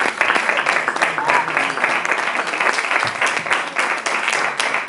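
Audience applauding: a dense, steady run of clapping from many hands in a small hall.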